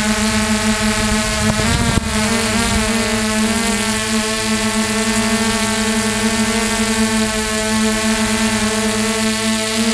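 Multirotor drone's electric motors and propellers whining steadily in a hover, heard close from the onboard camera. The pitch wavers briefly about two seconds in, with a single click.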